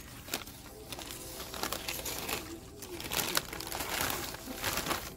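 Plastic bag crinkling as it is handled and an item is slipped back into it, in irregular rustles that get busier and louder in the second half.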